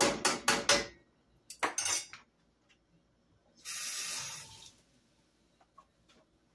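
A metal spoon stirring rice in a metal pot, with quick clinks and scrapes in the first second and again about two seconds in. A brief hiss lasting about a second comes near four seconds in.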